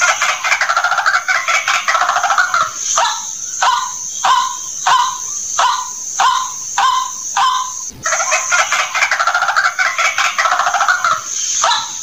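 White-breasted waterhen calling, a recording played as a trapping lure: about three seconds of dense, harsh croaking chatter, then a run of short single notes repeated about one and a half times a second. The whole sequence starts over about 8 seconds in.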